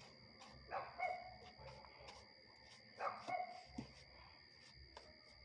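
A dog barks twice, about two seconds apart.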